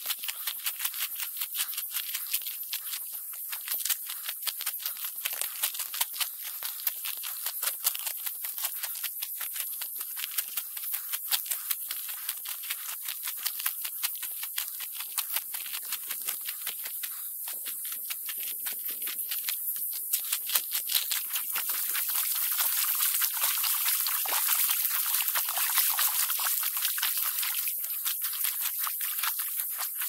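Footsteps crunching over a gravel and cobble creek bed, played fast-forward so they run together into a rapid rattling patter over a steady high hiss. The hiss grows louder about two-thirds of the way through.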